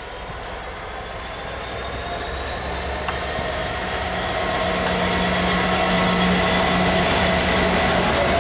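EWS Class 66 diesel-electric freight locomotive and its two-stroke diesel engine, running steadily as it approaches and passes, growing louder until it is alongside about two-thirds of the way in. A long train of coal hopper wagons follows it, rolling by.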